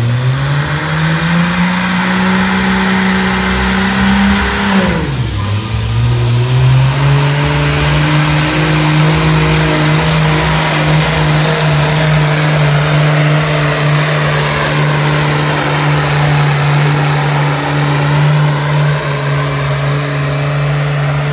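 Case IH pro stock pulling tractor's diesel engine at full throttle, dragging the weight sled down the track. The engine pitch climbs in the first seconds, drops sharply about five seconds in, then rises again and holds steady at high revs.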